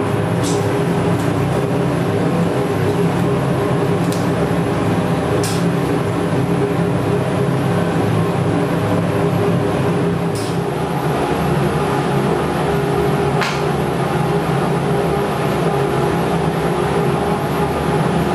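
Vacuum pump running steadily with a constant mechanical hum, pulling vacuum on the bagged panel during resin infusion. A few brief high ticks sound over it.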